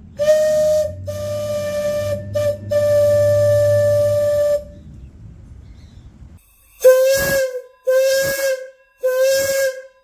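Lunkenheimer 3-inch plain-bell whistle, its bell lowered for a high pitch, blowing a steady, shrill tone with a hiss underneath. It gives two blasts, a brief toot and a longer blast of about two seconds, then after a pause three short blasts at a slightly lower pitch, each swooping up as it starts.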